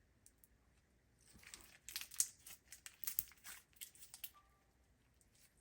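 Crunchy slime with hard pieces mixed in, squeezed and kneaded by hand, giving a run of small crackles and crunches from about a second in until about four seconds in.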